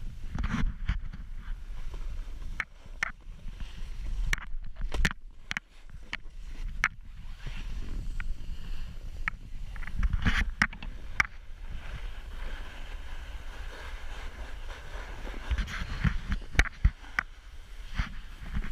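Snowboards sliding and scraping over packed snow at speed, a continuous hiss with a low rumble and scattered sharp knocks.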